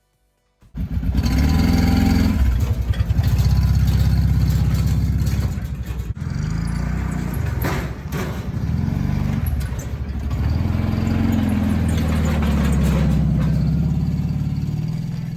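A machine engine cuts in abruptly under a second in and runs with a low, pulsing throb, its speed rising and falling, with some clatter over it.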